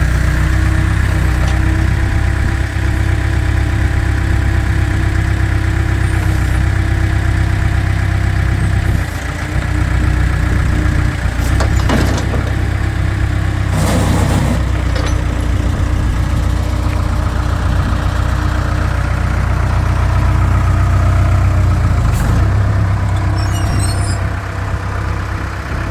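Case 580 Super K backhoe loader's diesel engine running steadily, with its note dipping briefly about nine seconds in and a short burst of hiss around fourteen seconds.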